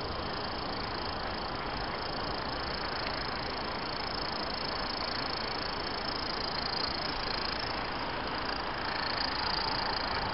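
Hornby OO gauge Class 50 model locomotive and its coaches running along the track, a steady electric motor and wheel noise under a constant hiss, getting a little louder from about six seconds in as the train passes close.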